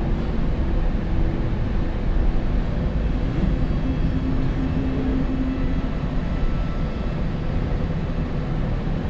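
Room air conditioner running: a steady low rumble with a faint hum.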